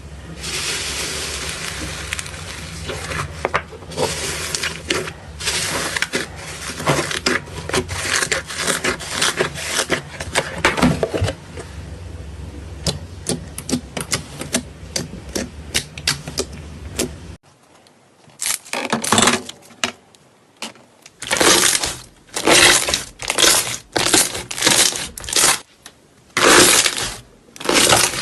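Slime being squeezed and worked by hand, making dense sticky clicks and crackles. After a sudden cut about 17 seconds in, a different slime is pressed in a steady rhythm, a loud squelching pop about once a second.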